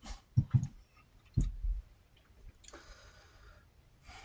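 Three short clicks with soft low knocks in the first second and a half, then about a second of faint hiss.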